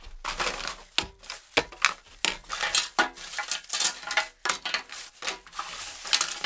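Thin plastic carrier bag rustling and crinkling as PVC pipe fittings are pulled out of it, with several sharp plastic knocks as the fittings are set down on the workbench.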